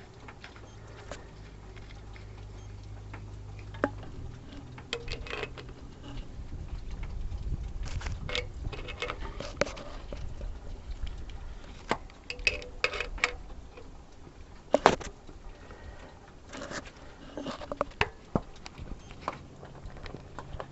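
Scattered clicks and metallic clinks of a wrench working a sensor onto a brass oil-pressure tee, in short clusters as the fitting is turned and tightened.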